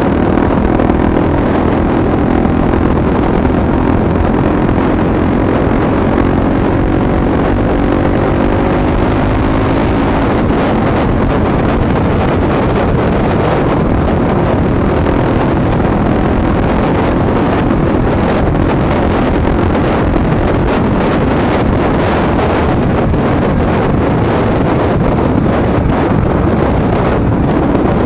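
Honda Tornado single-cylinder four-stroke motorcycle with an aftermarket exhaust, heard on board while riding. The engine note falls over the first several seconds as the bike slows, then runs fairly steadily, with heavy wind noise on the microphone.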